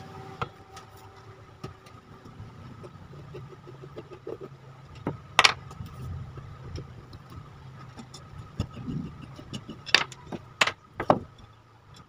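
Screwdriver unscrewing the screws of a ceiling fan motor's end cover: light scraping and ticking of metal on metal, with sharp metal clicks, one about five seconds in and three close together near the end, over a low steady hum.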